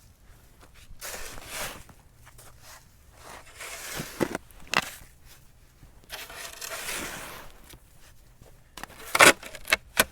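Snow being shoveled: a shovel scraping and scooping through snow in four strokes, with sharp knocks about four and nine seconds in.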